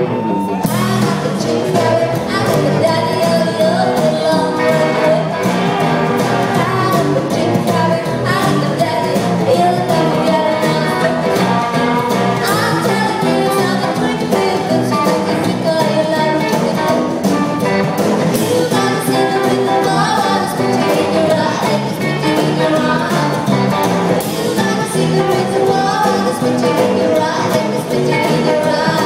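Live rockabilly band playing a song: a woman singing over upright double bass and drums.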